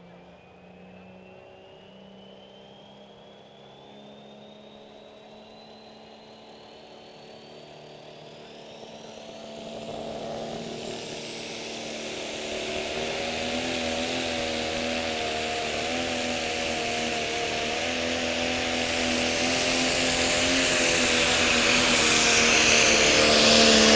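Pro Stock pulling tractor's diesel engine working under full load as it pulls the weight-transfer sled down the track, growing steadily louder as it comes closer. A thin high whistle climbs in pitch over the first ten seconds.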